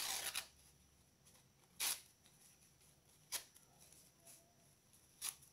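Toilet paper being torn into small pieces by hand: four short rips, the first about half a second long, the other three brief and about a second and a half apart.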